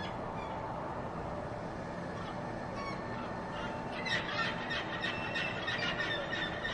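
Glaucous gulls crying over a steady urban rumble and hum. A few faint calls come first, then about four seconds in a dense run of short, harsh, rapidly repeated cries begins.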